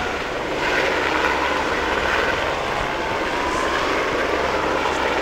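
Helicopter flying overhead, its engine and rotor a steady loud noise that grows louder about a second in.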